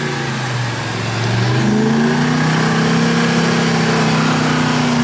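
Dodge Ram 2500 Power Wagon's 5.7 HEMI V8 engine under load, climbing a muddy track. The revs rise about a second in and then hold steady and loud.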